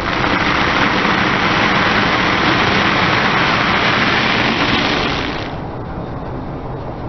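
Car tyre rolling over and crushing a block of dried vermicelli noodles: a dense crackling crunch of brittle strands snapping, which stops about five and a half seconds in.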